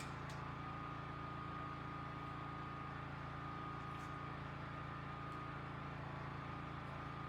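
Steady hum of a generator engine running, with a steady high tone over it and a couple of faint clicks.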